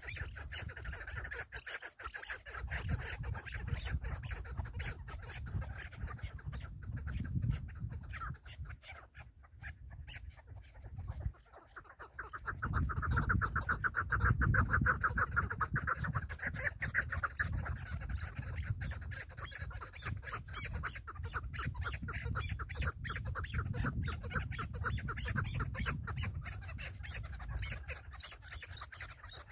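Chukar partridges calling: long runs of fast clucking notes, loudest about halfway through, over a low rumble.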